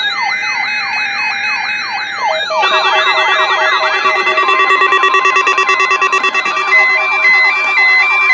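Several weather alert radios alarming at once, set off by the NOAA Weather Radio weekly test's attention signal. A siren-like rising sweep repeats about three times a second, and about two and a half seconds in more receivers join with their own sweeps, stepped beeping tones and steady tones.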